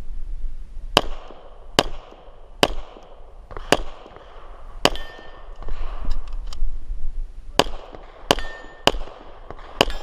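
Glock 34 9mm pistol firing about nine shots at a paced rate, a shot every second or less, with a pause of about two and a half seconds in the middle. A couple of shots are followed by a short metallic ring.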